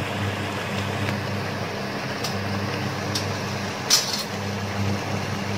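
An induction cooktop humming steadily, with a few sharp metallic clicks as a small spoon taps against the steel spice tins of a masala box. The loudest click comes about four seconds in.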